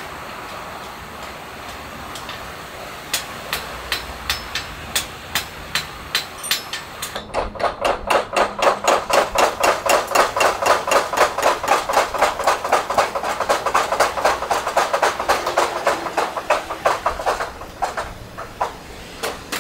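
Hammer blows ringing on metal at a blacksmith's anvil. Scattered strikes at first, then from about seven seconds in a steady run of about three blows a second, which stops a couple of seconds before the end.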